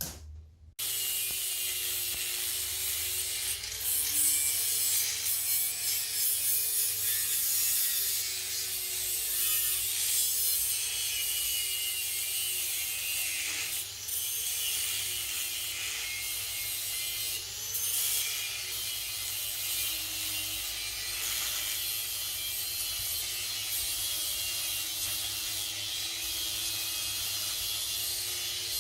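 A small electric power tool running under load: a steady motor whine that dips in pitch and recovers several times, most clearly about two-thirds of the way through, over a harsh grinding hiss of the tool working metal.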